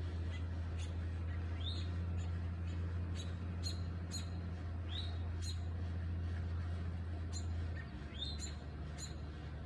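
Small birds chirping in short, sharp calls every second or so, over a steady low hum that drops a little near the end.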